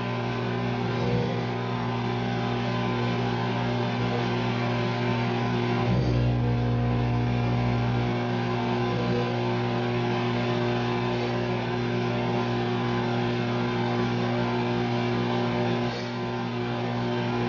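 Rock music with guitar over a steady low hum.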